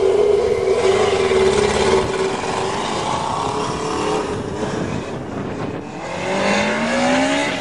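Motorcycle engine of a home-built dune buggy revved hard as the buggy tears off across dirt. The engine is held at high revs at first, then drops and climbs again in pitch as it accelerates near the end. The engine is still cold while being run this hard.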